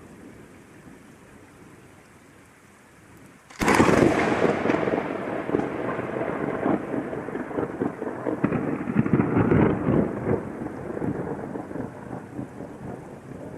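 Steady rain with thunder. A little over three seconds in, a sudden thunderclap cracks overhead and rolls on as rumbling thunder for several seconds, slowly fading.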